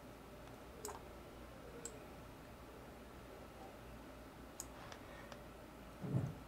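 Computer mouse clicking, about five sharp single clicks spaced irregularly, during slider adjustments. A short low thump near the end is the loudest sound.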